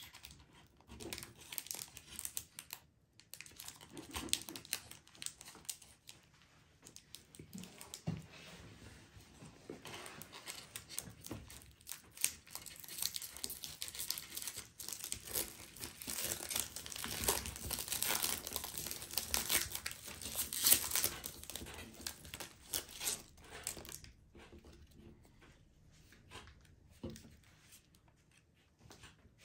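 A Pokémon booster pack's foil wrapper being torn open and crinkled by hand, the crackling heaviest through the middle and dying down near the end.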